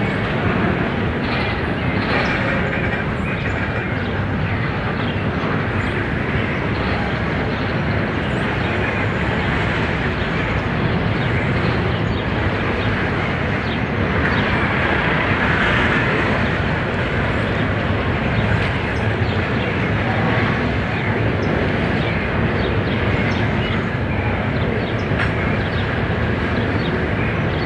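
Freight train of covered hopper wagons rolling past, with a steady noise of steel wheels running on the rails.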